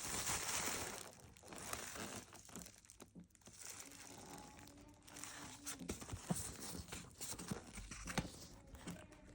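Packaging being handled and unwrapped: crinkling and rustling, loudest in the first second, then quieter rustles with scattered small clicks and taps.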